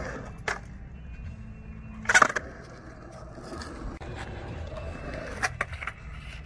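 Skateboard wheels rolling on concrete in a skatepark bowl, broken by sharp clacks of the board and trucks striking the concrete: one about half a second in, the loudest a little after two seconds, and two more close together near the end.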